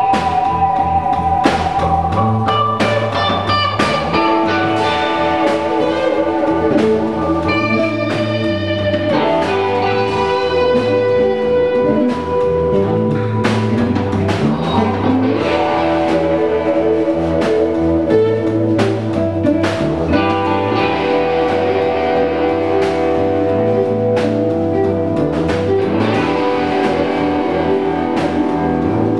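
Rock band jamming a laid-back blues groove: electric guitars playing held, bending lead notes over a repeating bass guitar line and a steady drum-kit beat.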